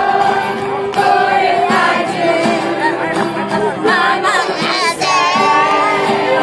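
A song sung by a group of voices together, with acoustic guitar accompaniment and some long held notes.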